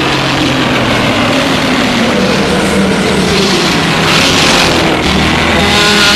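Monster roar sound effect attributed to Imperial Godzilla: one long, loud, rough roar carrying a pitched tone that sags in pitch and then climbs again, with a harsher, brighter stretch in the middle.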